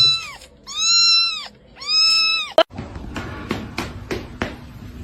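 A kitten meowing three times, high-pitched calls that rise and fall, about a second apart. A sharp click follows, then faint scattered taps.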